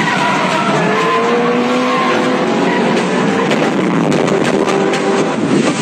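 A car's engine running hard while its tyres squeal and skid, with wavering squeal tones over a steady loud roar of noise.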